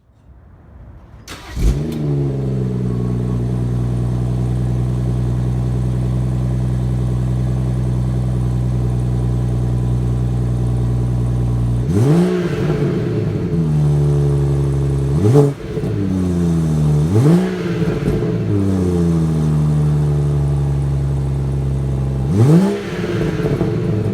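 BMW 340i's B58 turbocharged straight-six exhaust: the engine cranks, catches with a brief flare, and settles into a steady idle. About halfway through it is revved four times, each rev climbing quickly and falling back to idle.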